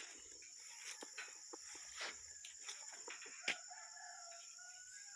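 A faint rooster crow, one drawn-out call starting about three and a half seconds in, over a steady high chirring of insects, with a few faint clicks.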